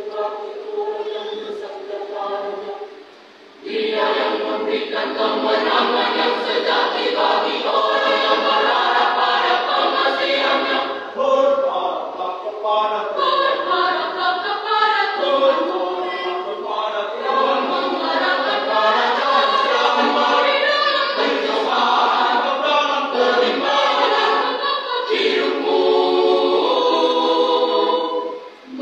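Church choir singing in many voices without instruments. The singing thins out and drops briefly about three seconds in, then the full choir comes back in louder.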